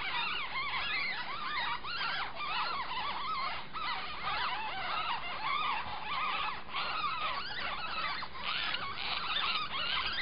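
Nine-day-old ferret kits squeaking: a continuous chorus of many overlapping high, quick squeaks that rise and fall.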